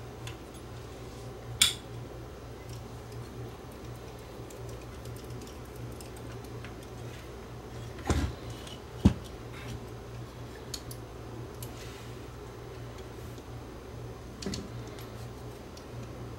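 Small clicks and taps of a screwdriver and hands working on a cassette deck's metal tape-transport chassis, with sharper knocks about a second and a half in and twice around eight to nine seconds in, over a steady low hum.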